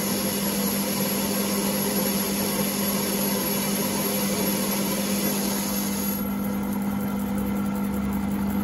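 Myford ML-7 lathe running under power feed as the tool turns the outside of a metal workpiece: a steady motor hum with a hiss of cutting. The cut is going cleanly, without chatter. About six seconds in the cutting hiss drops away while the lathe keeps running.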